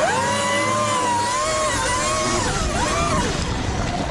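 Sur-Ron Light Bee X electric motor and drive whining under power from a 30 kW controller, the whine holding steady, then dipping and rising again about three seconds in as the throttle changes. Rushing wind and tyre noise run underneath.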